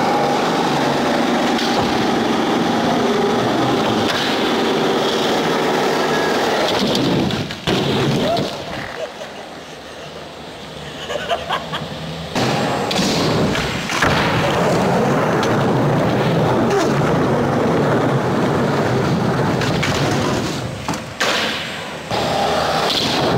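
Skateboard wheels rolling fast over a smooth skatepark floor and ramps, a steady grinding rumble, with a few sharp board impacts. The rolling fades for several seconds about a third of the way in, then returns.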